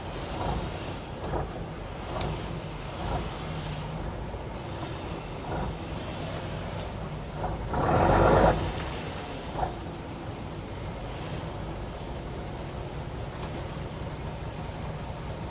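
A fishing boat's diesel engine running steadily with a low hum, with a few scattered knocks. About eight seconds in there is a brief loud rush of noise.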